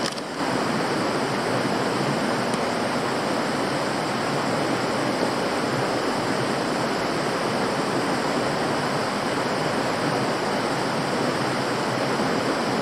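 Mountain river running over a rocky bed and small rapids: a steady rushing of water.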